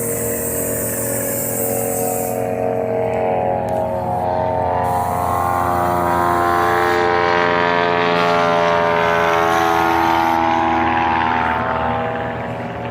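Small propeller-driven bush plane flying low past. The steady drone of its piston engine and propeller grows louder to a peak and then eases off near the end, its pitch sliding as it goes by.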